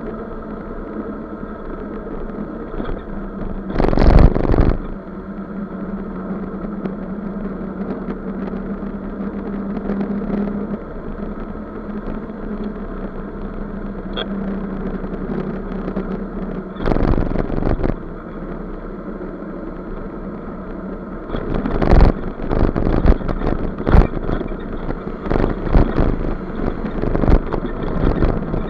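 Scooter engine running at steady cruising speed, a constant drone. A loud burst of noise comes about four seconds in and another around seventeen seconds, and over the last seven seconds come many short, sharp knocks and rattles.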